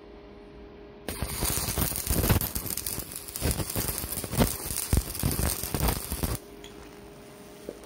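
Electric arc welder welding a steel washer onto the snapped stub of an alloy brake-caliper bleed nipple, so the stub can be gripped and unwound. The arc strikes about a second in, runs with an uneven crackle, and stops suddenly about six seconds in.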